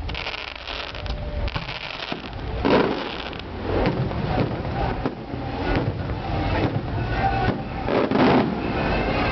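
Fireworks going off, a noisy crackling with two louder bursts, about three seconds in and near the end, over a steady low rumble.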